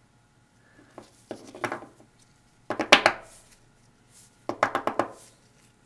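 Small metal parts of a diesel injection pump's end cap clicking and clattering against each other and the workbench as they are handled, in three short bursts, the loudest about three seconds in.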